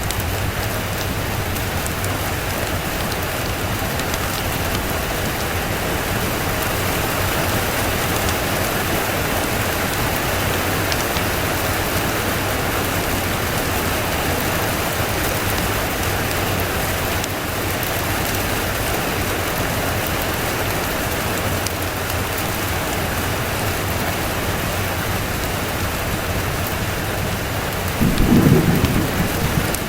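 Steady rain falling, with a short low rumble of thunder near the end.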